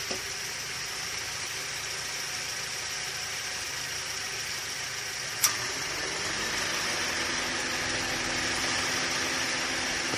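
Honda Stream engine idling with a steady hiss. About five and a half seconds in, a sharp click as the air-conditioning compressor's electromagnetic clutch plate snaps onto the pulley, after which a new steady hum joins and the running grows a little louder as the compressor takes load: the clutch now engages with its gap reduced.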